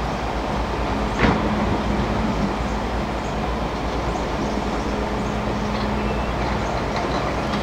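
Hydraulic excavator's diesel engine running steadily under working load over the rush of river water, with one sharp knock about a second in.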